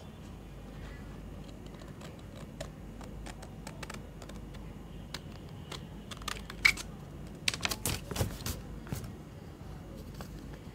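Scissors snipping through a paper shipping label: a scattered run of short crisp snips, thickest in the second half.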